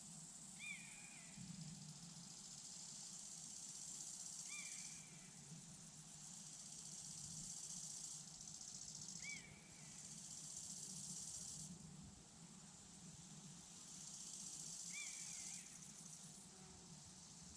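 Faint chorus of crickets, a high-pitched hiss that stops and starts every few seconds. A bird gives a short call four times, about every four to five seconds, over a low steady wind rumble.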